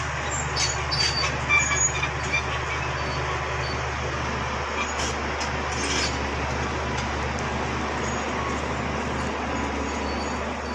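Bulldozer running under load, its diesel engine humming steadily while the steel tracks clank and squeal, with short squeaks and knocks about a second in and again around five seconds in.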